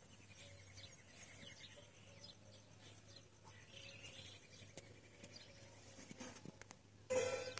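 Small birds chirping and calling, thin and scattered, over a faint steady low hum. About seven seconds in, a sudden loud, short animal call with several stacked tones, from the tethered zebu cattle.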